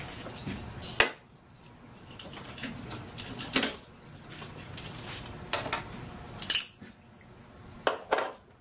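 Plastic shipping ties being snipped off a heat press's metal arm: a series of sharp snaps and clicks, about half a dozen, the loudest about a second in, with light clinking as the ties and arm are handled.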